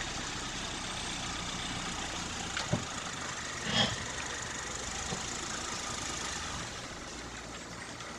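Honda hatchback engine idling, heard as a steady hiss with a faint low hum. A short knock comes a little before the middle, and a louder brief thump about a second later.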